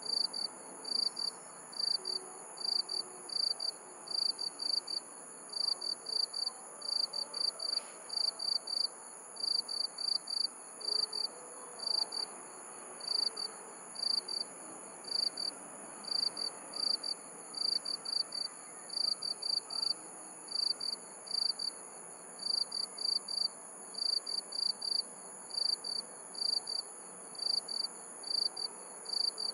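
Crickets chirping at night in short, evenly repeated pulses a couple of times a second, over a steady high insect trill.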